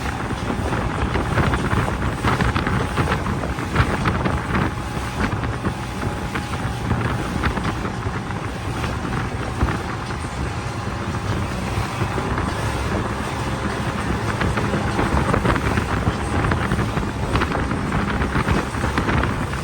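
Fishing charter boat running at speed offshore: a steady engine drone under heavy wind buffeting the microphone.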